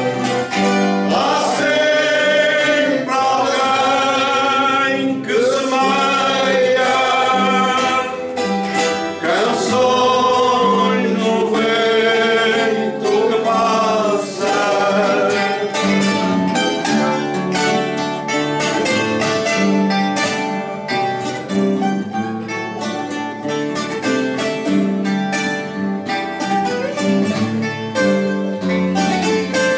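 Coimbra fado: a man singing with vibrato, accompanied by a Portuguese guitar and a classical guitar. The singing stops about halfway through and the two guitars play on alone.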